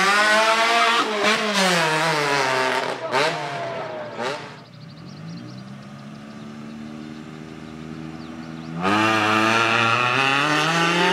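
Rally car engines: for the first few seconds one revs up and down as it pulls away, then after a cut another rally car idles steadily at the start line, and about nine seconds in it launches at full throttle, the engine revving high.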